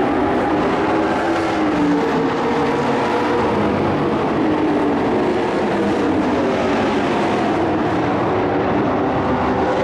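Several race truck engines running hard on a dirt oval, their pitch rising and falling as they accelerate down the straights and lift for the turns.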